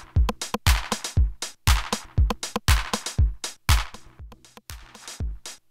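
Eurorack drum machine pattern playing through an FMR Audio Really Nice Compressor that has just been switched in: a deep kick with a falling pitch about twice a second, with sharper high hits in between. The drums get somewhat quieter about four seconds in.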